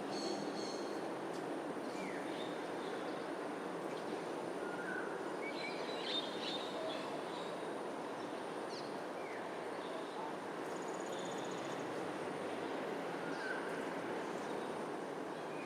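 Wild birds calling over a steady low background rumble like distant traffic: scattered short chirps, a burst of chirping about six seconds in, a short falling call repeated roughly every seven seconds, and a brief high trill near eleven seconds. A thin, high, steady tone runs underneath throughout.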